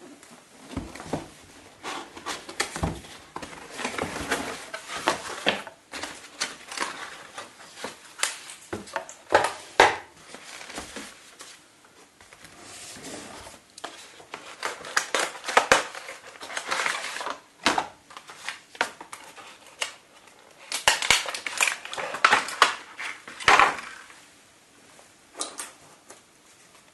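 Cardboard boxes and clear plastic blister trays being handled and opened on a table: irregular rustling, scraping and light knocks and clicks.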